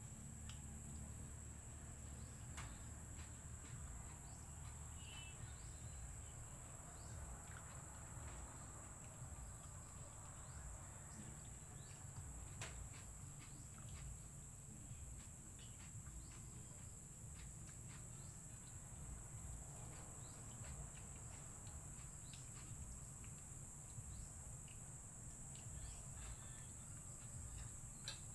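Faint, steady high-pitched insect drone with a low background rumble and a few faint clicks.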